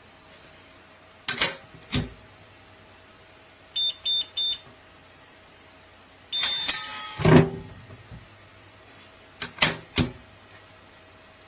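Biometric pistol safe being handled: two sharp clicks, then three short high electronic beeps from its keypad. Another beep follows with a clatter and thud from the case, then two more clicks.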